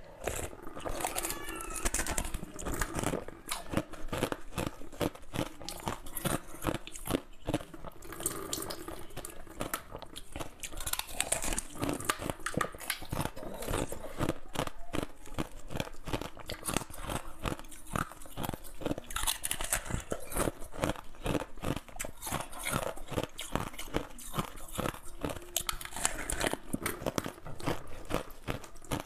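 A hard, translucent green food shell being bitten and chewed up close, with a dense run of crisp crunches and crackles.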